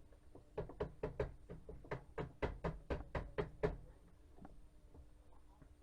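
Built-in slot-loading DVD drive of a TV/DVD combo knocking repeatedly as it takes in a disc and tries to read it, about five sharp knocks a second for some three seconds. The knocking stops suddenly.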